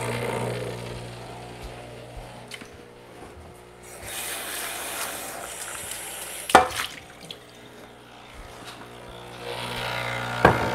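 Breville Barista Express espresso machine's vibratory pump humming steadily as it flushes hot water through the group head, with water hissing into the drip tray, louder midway and again just before the end. A sharp click comes about six and a half seconds in, and another as the hum stops at the end.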